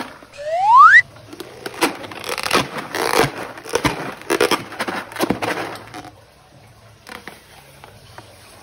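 A loud rising squeal lasting under a second, then several seconds of crackly, sticky squishing and scraping as slime and balloon rubber are worked, dying down near the end to faint scattered clicks.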